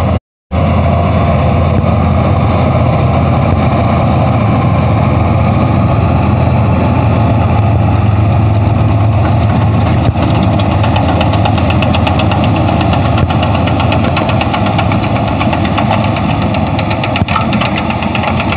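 Tractor engine running steadily and loud, with a strong low drone; it starts after a brief gap about half a second in.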